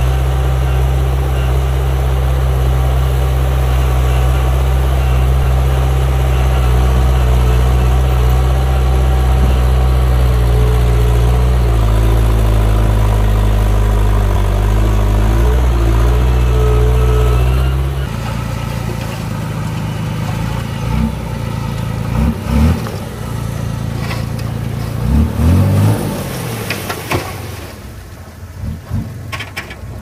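Diesel engine of heavy construction machinery running loud and steady, with its pitch shifting briefly. About eighteen seconds in, the sound changes abruptly to a quieter engine revving up and down unevenly.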